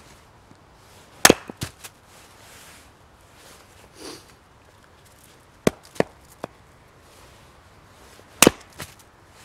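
Hatchet chopping and splitting firewood on a chopping block. There are three sharp chops, about a second in, a little past halfway, and near the end, each followed by one or two lighter knocks.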